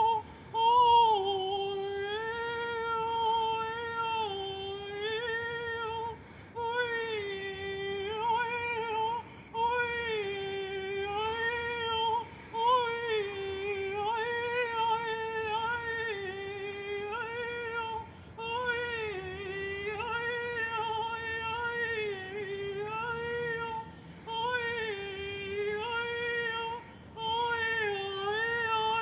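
A woman singing unaccompanied, wordless, improvised sound-channeling vocals: long held vowel tones that waver and glide around one pitch, broken by brief pauses for breath every few seconds.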